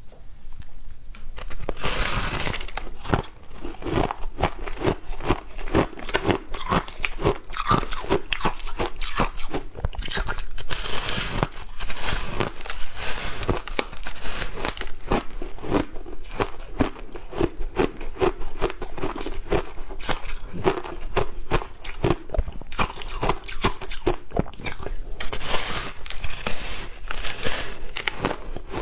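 Frozen matcha ice being bitten and chewed: dense, continuous crunching that starts about two seconds in.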